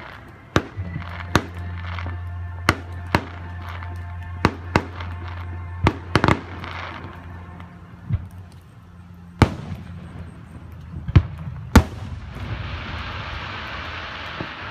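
Aerial fireworks shells going off: about a dozen sharp bangs at irregular intervals, some close together. About twelve seconds in, a dense crackling fizz lasts a couple of seconds.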